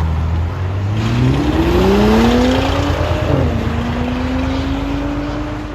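2019 Audi SQ5's 3.0L V6 exhaust with the rear muffler and resonators cut off, leaving only the middle resonator. The note is steady at first, then rises as the engine accelerates from about a second and a half in. It drops at an upshift a little past three seconds and holds steady after that.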